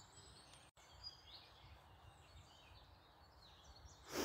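Faint songbirds chirping over a low outdoor background hiss, with a brief louder noise near the end.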